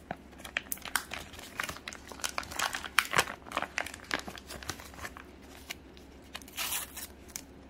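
Thin plastic wrapper of a packaged Pokémon bread crinkling and crackling in rapid irregular snaps as it is handled and pulled open. A brief tearing rustle comes near the end as the foil sticker pouch is opened.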